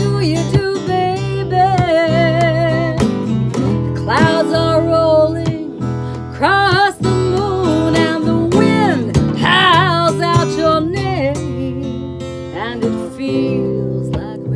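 Woman singing a slow line with vibrato over a strummed acoustic guitar and an acoustic bass guitar. The singing stops about eleven seconds in, and the guitar and bass play on.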